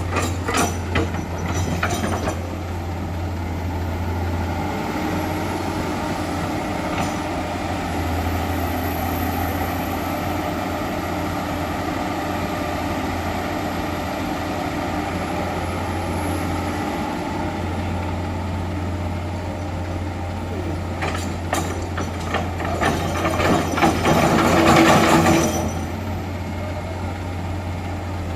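Heavy diesel excavator engine running with a steady low drone while loading soil into a dump truck, with clanks and rattles near the start and a louder stretch of knocking and rattling a few seconds before the end.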